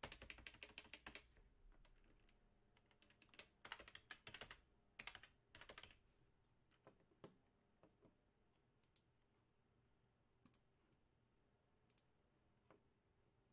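Faint typing on a computer keyboard: a few quick runs of key clicks, then scattered single clicks.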